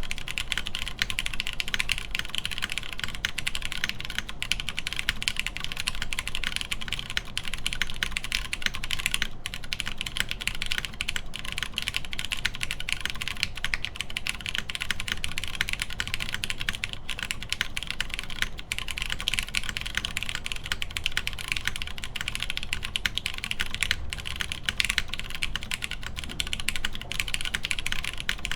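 Continuous fast typing on a custom mechanical keyboard with lubed Cherry MX Brown tactile switches, GMK keycaps and a half FR4 plate: a steady stream of key clacks.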